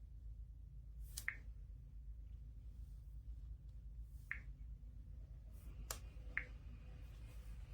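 Four faint, short clicks, spaced irregularly a second or more apart, over a low steady hum.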